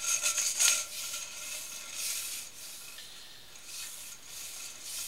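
Sewer inspection camera's push cable being fed into the drain line: a rough rubbing, scraping hiss in uneven surges, strongest in the first second, over a faint steady high whine.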